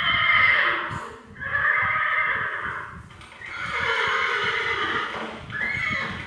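A horse whinnying several times in a row, each neigh lasting about a second and a half.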